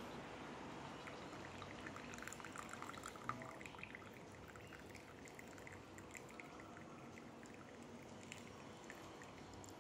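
Green tea poured in a thin steady stream from a frog-shaped teapot's spout into a porcelain cup, trickling softly; it gets a little quieter after about four seconds.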